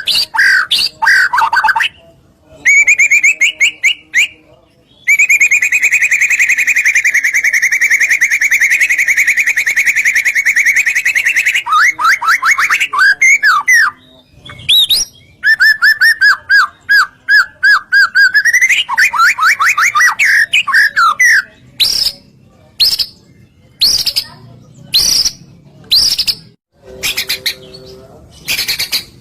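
White-rumped shama (murai batu) singing in full, varied song: rapid trills and rattling phrases, including one long trill held for about six seconds, then short, sharp separate notes near the end.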